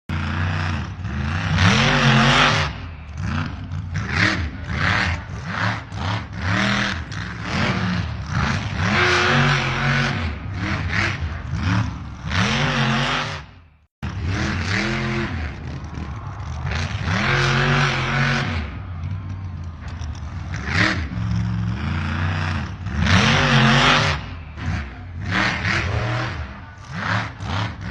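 Radio-controlled scale model trucks running: a simulated diesel engine sound rises and falls in pitch, mixed with repeated bursts of noisy motor and drivetrain sound. The sound cuts out briefly about halfway through, then carries on the same way.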